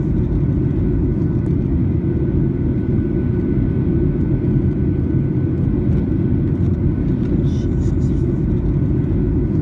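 Steady low rumble of airliner cabin noise in flight, with a faint steady whine above it.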